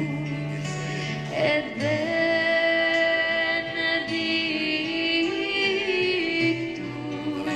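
A voice singing long, held notes with vibrato over a soft instrumental accompaniment, sliding up to a higher note about a second and a half in.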